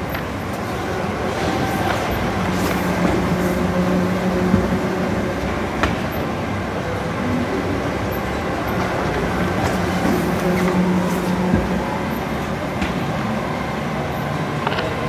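Grassi Compact 160 sheet laminator running: a steady mechanical rumble from its rollers and conveyor, with a humming tone that comes and goes and a few sharp clicks as printed sheets are fed in by hand.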